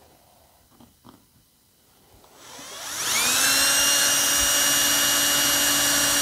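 Cordless drill with a 3/32 inch bit spinning up about two and a half seconds in, then running with a steady high whine as it drills a pilot hole through a thin steel ruler into pine. A few faint clicks of handling come before it.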